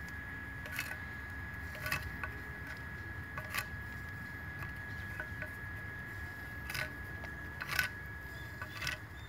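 A small metal hand tool scraping and gouging the back of a natural stone tile in about six short, separate strokes, the loudest near the end, over a faint steady high whine.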